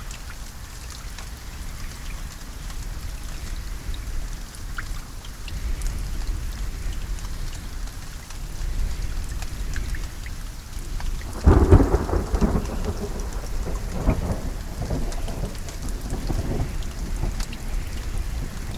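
Steady rain falling, with a sudden clap of thunder a little past halfway that rolls on in a few weaker rumbles for several seconds.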